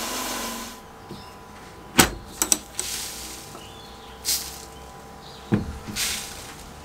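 Steady hiss of a sandblast cabinet's blast gun that cuts off under a second in. Then the metal latch of the cabinet's side door clicks sharply, followed by a couple of lighter clicks, a knock and short swishes as the door is handled and opened.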